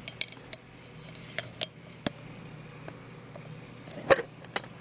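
Scattered light clicks and clinks of a green plastic stick knocking against a clear plastic container, unevenly spaced, the loudest about four seconds in.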